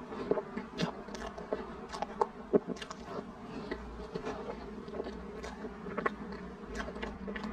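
Close-up eating sounds: wet mouth smacking and chewing on a mouthful of chocolate cream cake, with a metal spoon scooping and scraping in a plastic tub. There are many short clicks throughout, the sharpest about two and a half seconds in, over a steady low hum.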